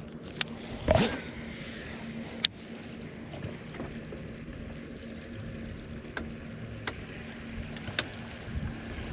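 Bass boat's electric trolling motor humming steadily on one constant tone, with a short whoosh about a second in and a few sharp clicks, the loudest about two and a half seconds in.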